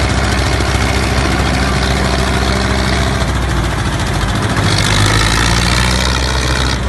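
Diesel tractor engines labouring under heavy load in a tug-of-war: a three-cylinder Mahindra 265 DI and a single-cylinder Eicher 241 pulling against each other at full throttle. A loud, steady engine note that changes about two-thirds of the way in.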